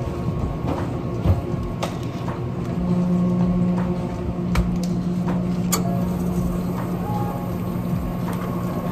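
Drink-making sounds behind a café counter: a steady machine hum, scattered clinks and knocks of cups, jars and ice on the counter, and liquid poured over ice in a blender jar near the end.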